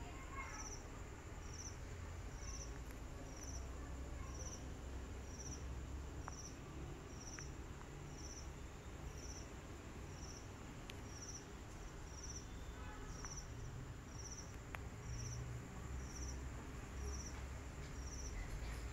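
Cricket chirping: short high chirps repeating very evenly, about three every two seconds, over a steady high insect whine and a low rumble.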